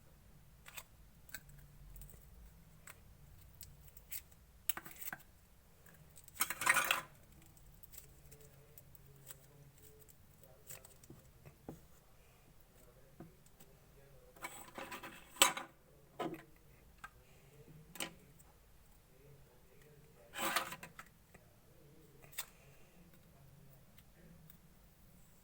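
Clear slime being mixed and worked by hand: scattered small sticky clicks and pops, with three louder, longer bursts spread through.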